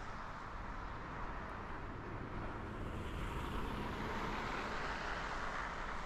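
Road traffic noise: a steady hiss of tyres and engines that swells as a car passes, from about halfway through to near the end, over a low rumble.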